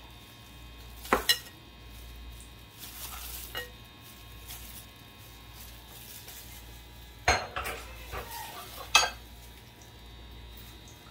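Dishes knocking together: a clear bowl of boiled sheep's-head meat clinking against a glass baking dish as the meat is set out over the fatteh. There is a quick pair of knocks about a second in and a cluster of knocks from about seven to nine seconds in, the last the loudest, over a steady low hum.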